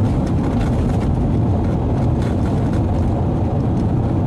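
Steady rumble of road and engine noise inside a moving vehicle's cabin, heaviest in the low end.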